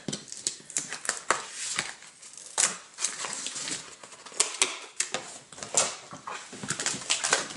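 Hands handling comic books in rigid plastic top loaders and a cardboard backboard: scattered clicks, taps and crinkly rustling of plastic and card.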